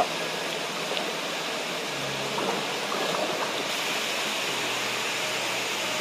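Waterfall rushing into a gorge pool: a steady hiss of falling water that grows a little louder about three seconds in.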